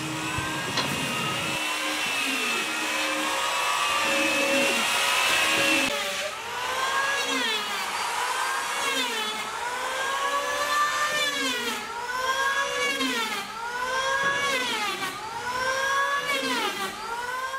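Several handheld electric power planes and sanders running on wooden hull planking, their motors whining together. Their pitch falls and rises again every second or so as they work the wood.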